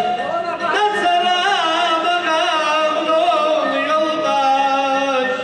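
A man singing live into a microphone with a small string band: a loud, ornamented vocal line that wavers and bends in pitch, over plucked-string accompaniment.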